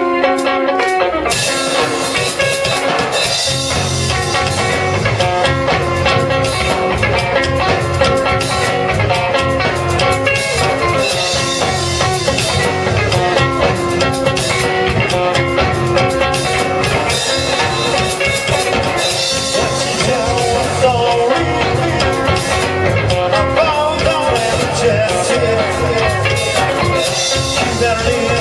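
A live rock band playing. Guitar is joined by bass and drums in the first few seconds, and the full band then plays on at a steady, driving pace.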